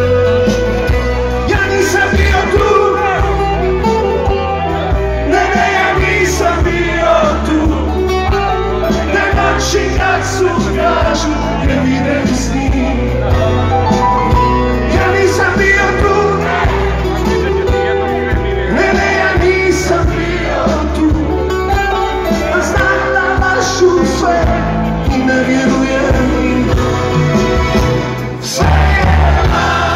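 Live concert music: a band playing loudly with a male lead singer, heard from within the crowd. The sound drops briefly near the end, then comes back at full level.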